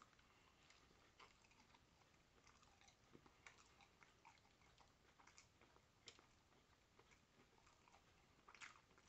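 Near silence with faint chewing on a burrito: a few soft scattered mouth clicks, the clearest near the end.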